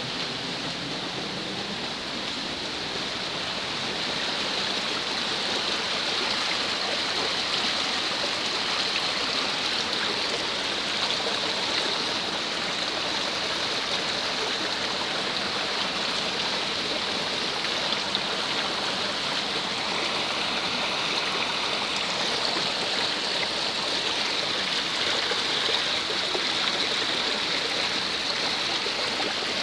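Muddy rainwater runoff rushing down an eroded dirt gully: a steady rushing of flowing water that grows louder about four seconds in.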